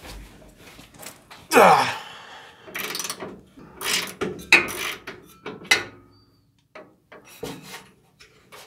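Socket ratchet wrench clicking as it backs the nut off the upper rear shock-absorber bolt, in a few separate bursts. About one and a half seconds in there is a loud squeal that falls in pitch.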